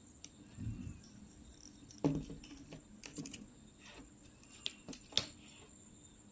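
Light knocks and clicks of latex Foley catheters being handled and moved about on a tabletop, the loudest knock about two seconds in and a quick run of sharp clicks near the end. A faint steady high whine runs underneath.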